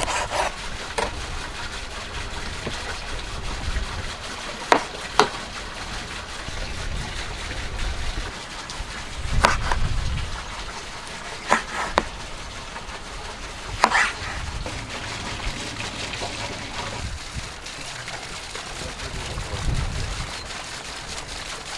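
Chef's knife slicing potatoes and tomatoes on a wooden cutting board: sharp knocks of the blade hitting the board, scattered a few seconds apart and some in quick pairs, over a low steady background.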